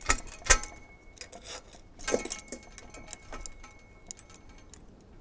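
Sharp metal clinks and knocks from adjusting the custom-built fence-tensioning attachment, with two loud strikes in the first half-second and another cluster about two seconds in. Lighter ticks follow, over a faint ringing that stops about four seconds in.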